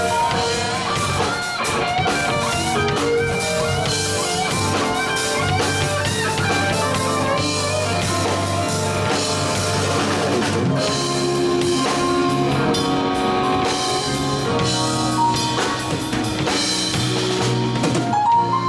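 Live rock band playing an instrumental passage: an electric guitar plays a bending lead line over drum kit and bass guitar.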